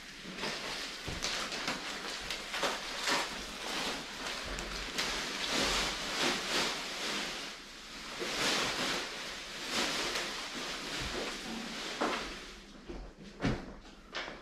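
Plastic packaging film and bags rustling and crinkling as they are handled and pulled apart, with a few sharper crackles near the end.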